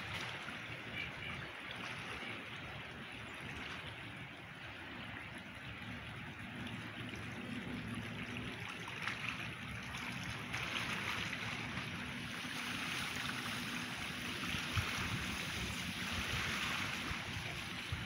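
Wind over a lake: a steady rushing wash of wind and rippling water, with wind rumbling on the microphone. It grows a little louder in the second half.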